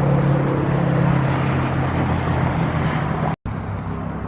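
A steady low motor hum, like an engine running, with a brief complete dropout about three and a half seconds in.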